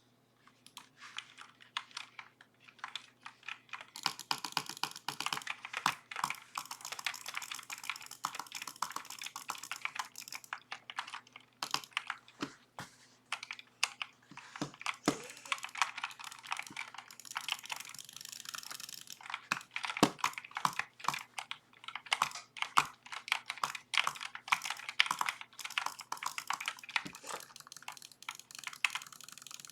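Redragon K552 mechanical keyboard being typed on, a rapid run of key clicks heard through a webcam microphone. The typing is sparse at first, then fast and steady from about four seconds in, with a few deeper knocks mixed in.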